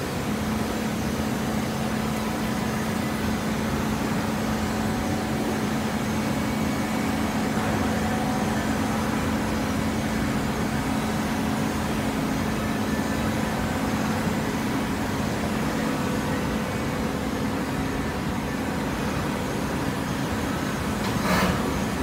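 Automatic horizontal hydraulic baler running: a steady mechanical drone with a steady hum from its power unit, and a brief burst of noise near the end.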